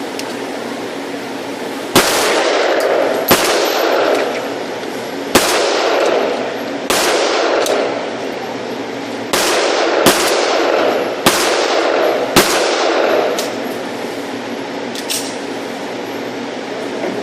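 About eight pistol shots fired at an uneven pace, one every one to two and a half seconds, each ringing out with an echo that trails off over about a second. A few fainter shots or clicks come between and after them.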